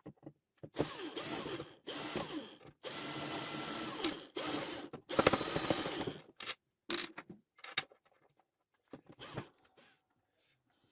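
Electric drill running in about five short bursts of a second or so each, followed by a few short clicks and knocks.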